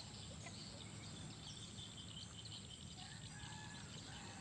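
Faint outdoor ambience: small birds chirping in quick short calls, with a few brief whistled notes in the second half, over a low steady rumble.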